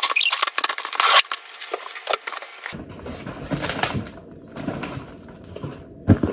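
Packaging being opened and handled by hand: dense crackling and rustling, loudest for the first two and a half seconds, then softer rustling with scattered clicks.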